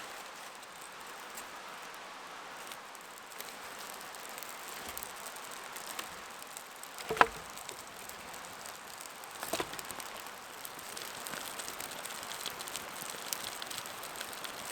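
Water in a small pot coming to a boil over an alcohol stove, a steady hiss with a sharp click about seven seconds in and another about two seconds later.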